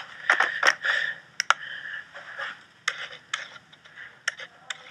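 Rustling and a scattering of sharp clicks from a camera being handled and moved.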